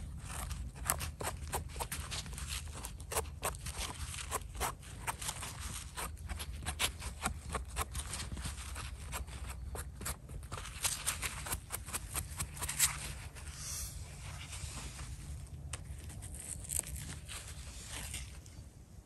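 Small knife scraping soil and moss off the stem of a freshly picked bolete mushroom: a quick run of short scrapes and crunches that grows sparser in the last few seconds.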